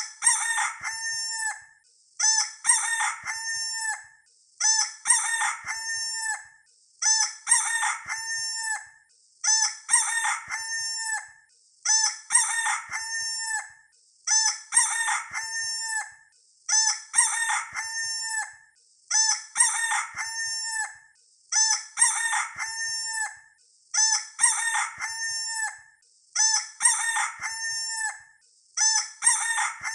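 Rooster crowing cock-a-doodle-doo, the same crow looped over and over about every two and a half seconds, a dozen times, with a short pause between crows.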